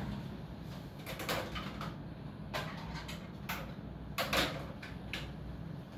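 Short scrapes and knocks, about five of them a second or so apart, from wooden wardrobe sliding doors and things being handled, over a steady low hum.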